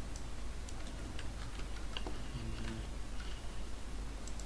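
Computer keyboard and mouse clicking: about a dozen irregular, separate taps, over a steady low hum.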